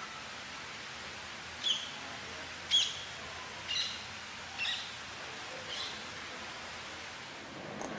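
A bird giving five short, sharp calls, about one a second, over a steady background hiss.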